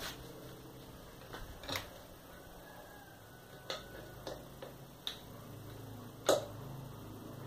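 Scattered metallic clicks and clinks of a hand wrench against the bolts and metal of a motorcycle engine's cylinder head, about six separate knocks with the sharpest one about six seconds in.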